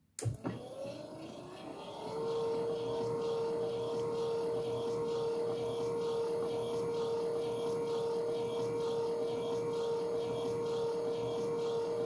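Nice Home Aria 401 ram-type gate opener's motor starting up again from the end of its travel with a short click, then rising over about two seconds to a steady whine as it drives the trolley along the screw at normal speed on the closing run of the position search.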